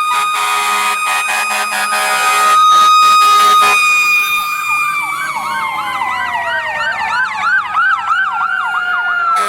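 Electronic fire-engine siren: a steady high tone, then from about five seconds in a fast yelp-style wail whose pitch slowly drops.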